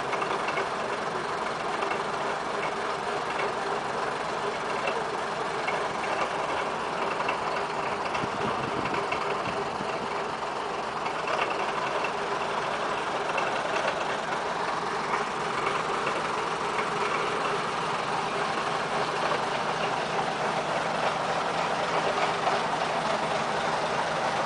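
First-generation British Rail diesel multiple unit's underfloor diesel engines idling steadily at the platform.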